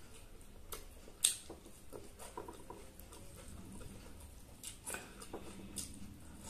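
Eating by hand from a banana leaf: fingers mixing rice on the leaf and chewing, heard as scattered soft clicks, crinkles and wet mouth sounds, with one sharper click about a second in.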